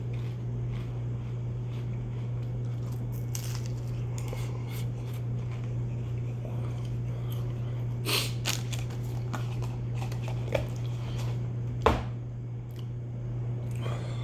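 A steady low hum under a few sharp clicks and crunches, clustered about eight to twelve seconds in, as a cracker spread with cream cheese is handled and bitten.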